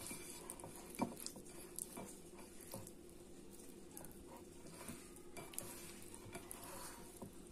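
Fingers tossing tofu cubes in tempura flour in a bowl: soft, irregular taps and knocks against the bowl, over a faint steady hum.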